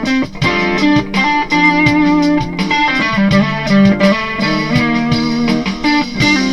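Electric guitar, a Kiesel Delos played through a PRS HDRX 20 tube amp, playing melodic single-note lead lines with bends and vibrato over held lower notes.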